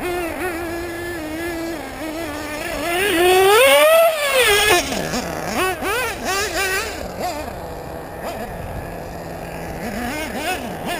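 Nitro-fuelled LRP ZR.30 two-stroke glow engine in a Team Associated RC8 1/8-scale buggy, driven on and off the throttle. It holds a steady pitch briefly, revs up to its loudest about four seconds in, then drops and surges again several times.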